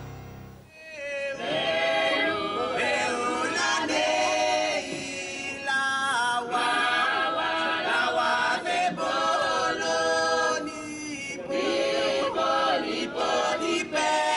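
A choir singing in harmony, mostly without instruments, starting about a second in as the tail of a theme tune fades out.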